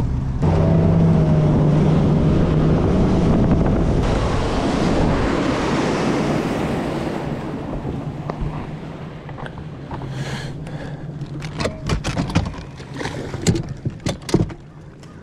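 A bass boat's outboard motor powers up and runs at speed, with wind and water rushing that fades after several seconds. Near the end come a series of sharp knocks and clicks.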